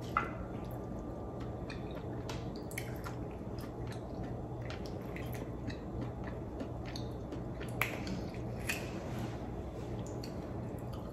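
Small wet squishes and scattered sharp clicks of fingers prying cooked black mussel meat from its shell, over a low steady hum.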